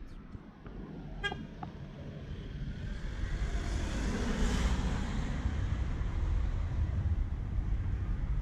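Street traffic: a passing road vehicle, its noise swelling from about three seconds in and peaking around four and a half seconds, with a very short pitched toot just over a second in.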